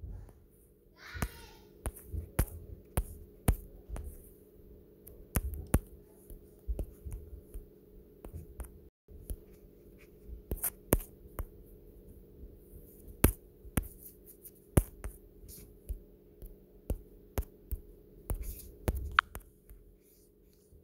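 Fingertips tapping on a phone's touchscreen: irregular sharp taps, about one or two a second, over a faint steady hum.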